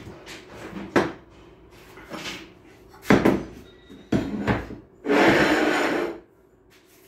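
Clunks and knocks of metal transmission parts being handled, then the automatic transmission case being moved on a metal workbench: two heavy knocks about three and four seconds in, followed by a scraping slide lasting about a second.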